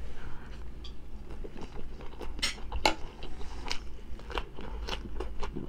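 Close-miked mouth sounds of eating: chewing a mouthful of rice and sausage, with crisp crunches from biting into fresh cucumber.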